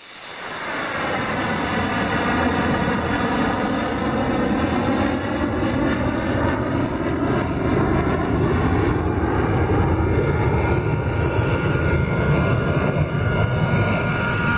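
Missile rocket motor firing at launch: a loud, steady rushing noise that swells in over the first second or two. A set of tones inside it slides slowly downward as the missile climbs away.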